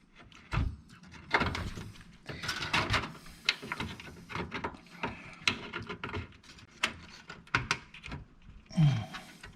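Handling noise of a component or cable being pushed into a desktop PC case: a string of small plastic and metal clicks, knocks and rustles as it is worked into place.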